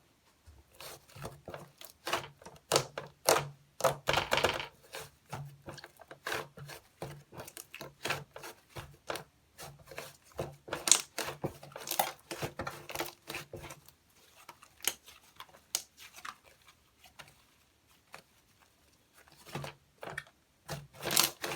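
Cloud slime being squeezed, stretched and torn by hand, giving irregular sticky clicks and crackles. It goes quieter for a few seconds past the middle, then picks up again near the end.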